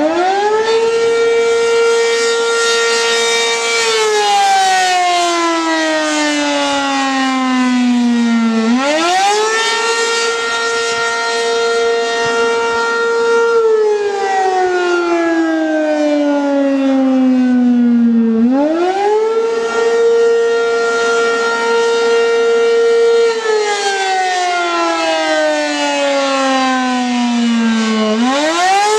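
ACA P-15 rotating outdoor warning siren sounding the Attack signal. Its pitch rises quickly, holds for about four seconds, then glides down for about five seconds before winding up again, about three times over.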